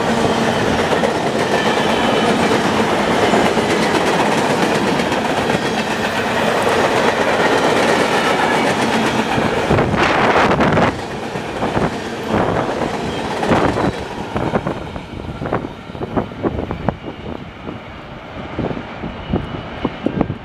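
Freight cars of a local freight train, mostly empty center beam flat cars, rolling past close by, their wheels clacking over the rail joints. About halfway through the dense rolling noise drops away to separate clacks that fade as the end of the train moves off.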